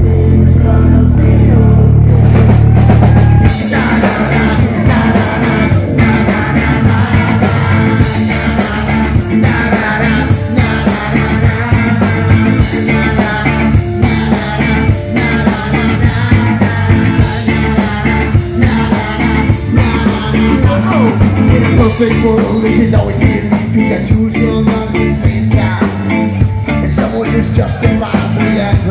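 Live rock band playing: electric guitars, bass and drum kit, with singing. It opens on sustained low notes, and the drums and full band come in about three and a half seconds in.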